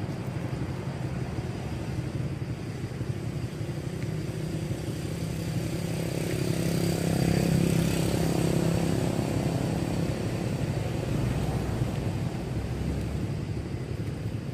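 A motor vehicle's engine passing by over a steady low rumble, growing louder to a peak about halfway through and then fading.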